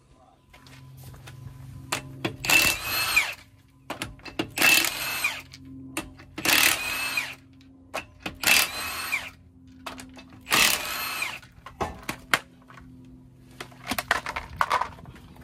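Cordless impact wrench loosening a car wheel's lug nuts: five short bursts of hammering about two seconds apart, one for each nut. Light metallic clatter follows near the end as the wrench is set down and the wheel is handled.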